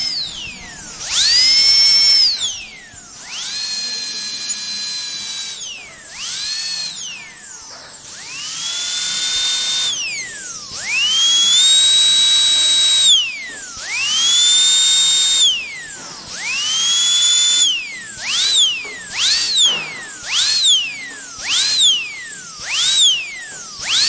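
Dentist's drill whining at a high pitch: it spins up, holds a steady pitch for one to three seconds, and winds down again, over and over. In the last third it runs in short bursts, spinning up and straight back down about once a second.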